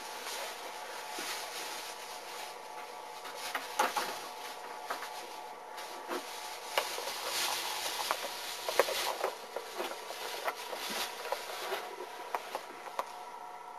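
Rustling with scattered light knocks and clicks in a small room, over a faint steady hum.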